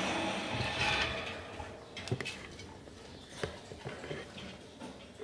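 A wire birdcage being handled: rustling for about the first second, then a few light knocks and rattles against the bars and clay nest bowl, most of them between about two and four seconds in.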